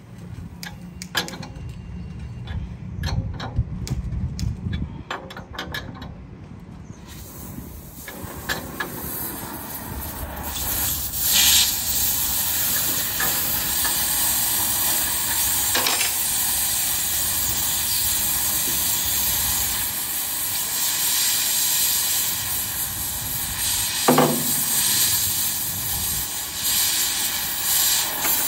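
Scattered knocks over a low rumble, then, about seven seconds in, a loud steady hiss comes in and keeps going, broken by a few sharp knocks.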